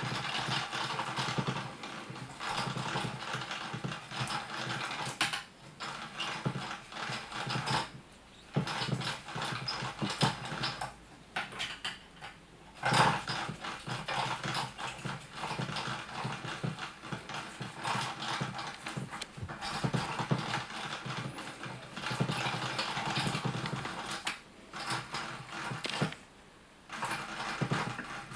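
Battery-powered cat teaser toy whirring and rattling as it spins its feather lure. It runs in stop-start spells, with several short pauses and a sharp click about halfway through.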